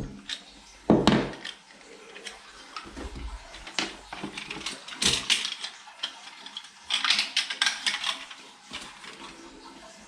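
Hard objects being handled: a thump about a second in, then bursts of clinking and clattering about five seconds in and again around seven to eight seconds in.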